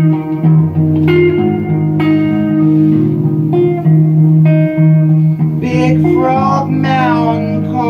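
Guitar playing a song's introduction: single plucked notes over a steady bass line. About six seconds in, a voice briefly comes in over it.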